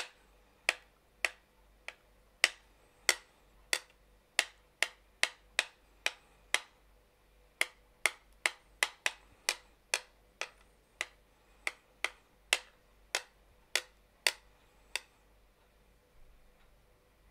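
Metal spoon tapping: sharp, ringing clicks at an uneven pace, about two a second, with a quicker run of taps around eight seconds in. The taps stop about fifteen seconds in.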